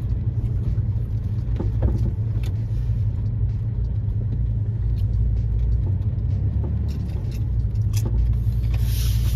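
Ford E-350 camper van driving slowly, heard from inside the cabin: a steady low road and engine rumble with scattered light clicks and rattles, and a brief rise in hiss near the end.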